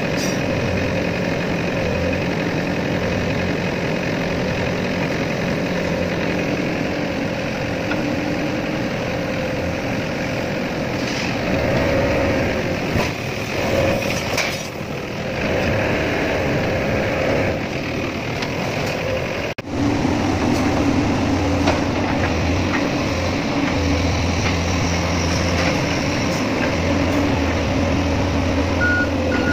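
Excavator's diesel engine running steadily, with a brief break about twenty seconds in.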